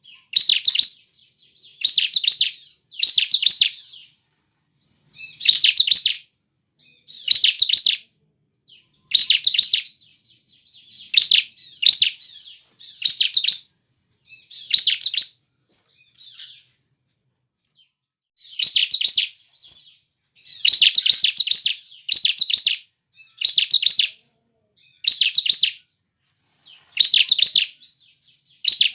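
Bar-winged prinia (ciblek) singing: high, fast rattling phrases of about a second each, repeated every second or two, with a longer pause about halfway through.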